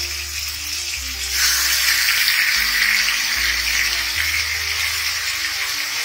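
Marinated chicken pieces sizzling as they fry in hot oil and onions in a wok; the sizzle grows much louder about a second and a half in, as a second leg piece goes into the oil. Background music with held bass notes plays under it.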